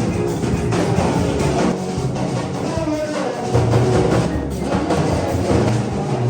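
Loud music with drums and other percussion, playing steadily.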